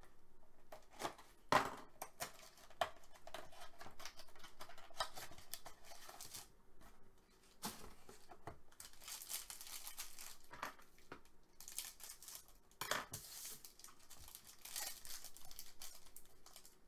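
Hands handling a cardboard trading-card box, giving short taps and rustles, then a foil card pack crinkling and being torn open in the second half.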